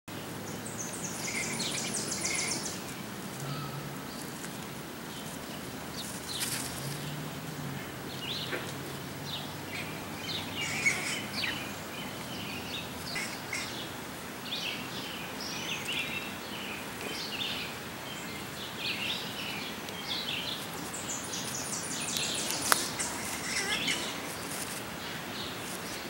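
Small birds chirping and calling on and off outdoors, with a fast high trill near the start and again a little before the end. A faint low hum sits under the first third, and there is one sharp click a little before the end.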